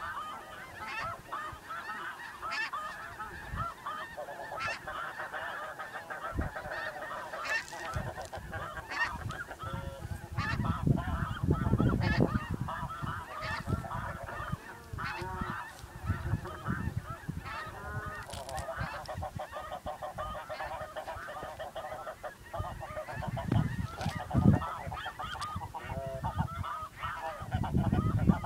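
A large flock of snow geese calling all at once, a dense, unbroken chorus of overlapping honks. Bursts of low rumble come through about ten to thirteen seconds in and again near the end.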